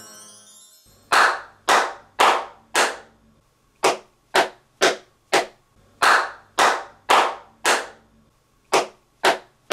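Single hand claps in groups of four, about two a second, alternating between the bare room and the same room lined with acoustic foam panels. In the bare room each clap rings on with a long echo tail. With the foam, each clap dies away quickly.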